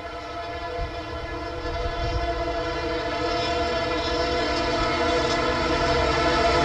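EMD WDP-4 diesel locomotive sounding its horn in one long, steady blast, over the low sound of its engine and the train, all growing louder as it approaches.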